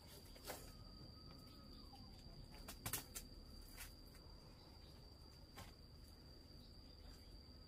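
Near silence: faint background with a thin, steady high-pitched tone and a few soft clicks or taps, the clearest a little before the midpoint.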